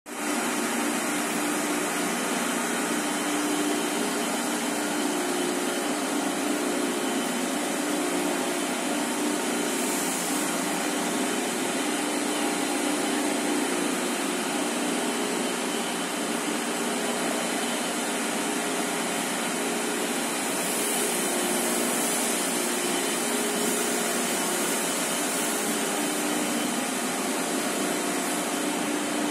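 Dechangyu FC IV 3600 high-speed tissue-paper slitting machine running: a steady whir with a low hum and a faint thin high whine.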